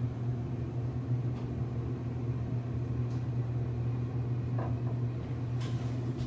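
Steady low hum inside an elevator car, with a faint short sound about four and a half seconds in.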